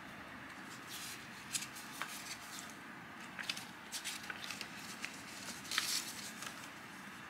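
Paper handled in the hands: scattered soft crackles and small clicks, with a slightly longer rustle near the end, over a low room hiss.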